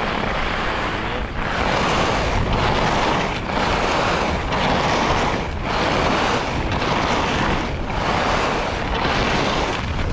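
Rossignol Hero FIS SL slalom skis carving short turns on packed-powder corduroy: a rushing scrape of edges on snow that swells and fades about once a second with each turn, over wind noise on the microphone.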